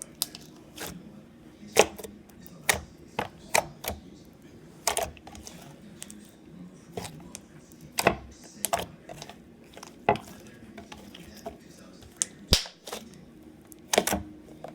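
Slime being squished and stretched by hand, giving off irregular sharp pops and clicks, about one or two a second.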